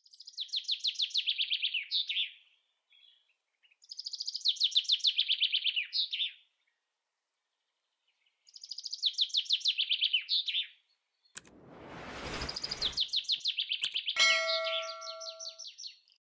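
Songbird singing three phrases of rapid trilled notes, each about two and a half seconds long. Then comes a whoosh, and a last trilled phrase with a bell-like chime about fourteen seconds in.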